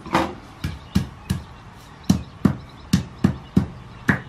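Knife striking a cutting board about ten times in quick, uneven succession, crushing and chopping garlic cloves.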